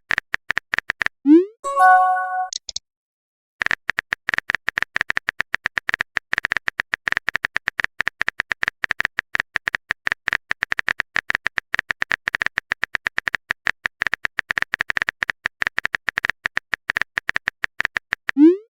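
Chat-app sound effects: a short rising pop and a brief chime about a second in, then a long run of rapid, even clicks like a typing sound effect, and another rising pop at the very end.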